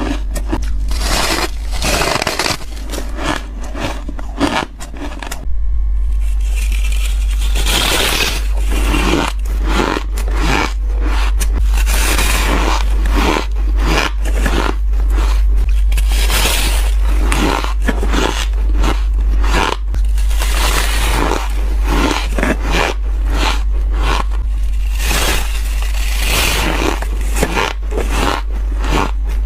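Close-up biting and chewing of squeaky ice, a continuous run of crunching and scraping cracks, with a short break about five seconds in. A steady low hum runs underneath.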